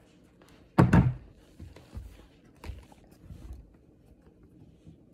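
Plastic slime tub being handled against a desk: a loud double thunk about a second in, then several lighter knocks.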